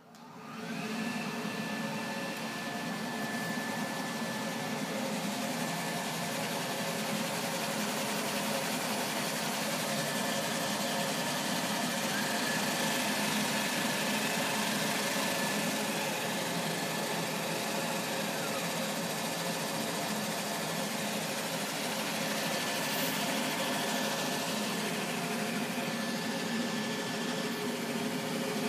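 Stenz Feeder 400 feeder machine running up to speed and then running steadily, its motor and conveyor belts whirring. A thin whine in the sound rises in pitch near the start and again about twelve seconds in, and drops about eighteen seconds in.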